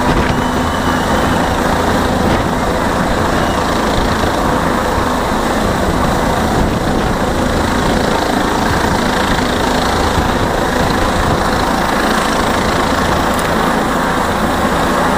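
Helicopter hovering low overhead, its rotor and engine running loud and steady.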